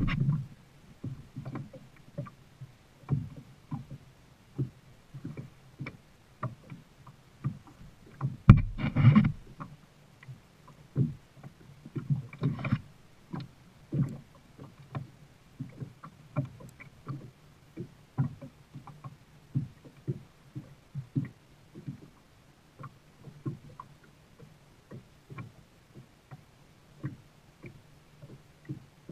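Kayak being paddled: irregular knocks of paddle and hull with water splashing, and a louder rush of splashing about a third of the way in.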